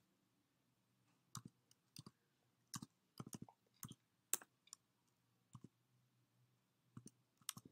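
Faint, irregular clicking of computer keyboard keys as a phone number is typed, in small clusters of quick taps with short pauses between.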